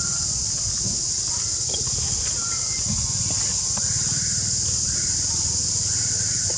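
Steady high-pitched drone of insects in the trees, over a low rumble, with a few short faint animal calls from about four seconds in.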